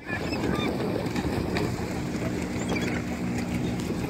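A boat's engine running steadily under wind noise on the microphone and the wash of water, with a few short, faint high cries from the gulls flying overhead.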